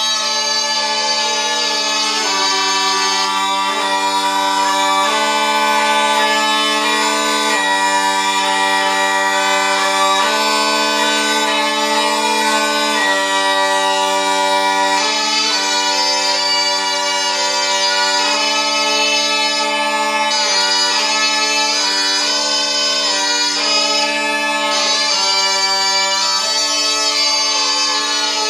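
Zampogna, the southern Italian bagpipe, playing a Christmas tune: a melody of changing notes over steady, unbroken drones.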